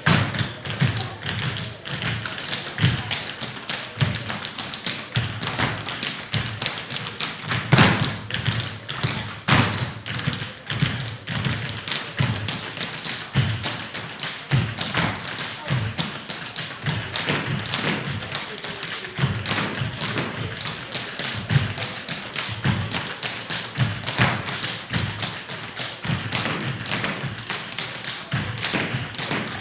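A troupe of tap dancers' shoes beating on a wooden floor in traditional Newfoundland/Irish tap dancing: a quick, dense clatter of taps with occasional louder stamps.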